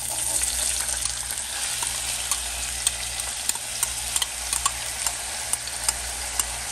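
Diced raw potatoes sizzling as they are scraped into hot oil in a nonstick frying pan; the sizzle jumps up as they first hit the oil. A metal spoon clinks now and then as it scrapes them out of a glass bowl.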